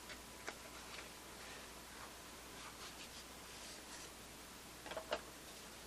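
Faint rustling and light scraping of a cardboard ammunition box being opened and its styrofoam cartridge tray slid out, with a few soft clicks and a sharper pair of clicks about five seconds in.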